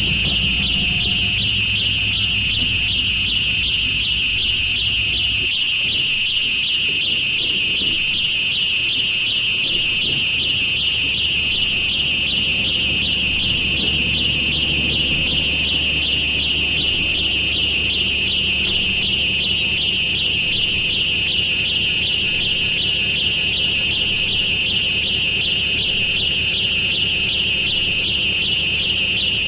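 Noise-music reworking of railroad recordings: a loud, steady, shrill alarm-like whine that never lets up, over a low rumble. The rumble drops away about five and a half seconds in and builds back from about ten seconds on.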